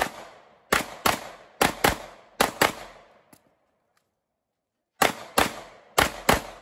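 Handgun fired in rapid pairs, about ten shots, with a pause of roughly two seconds in the middle.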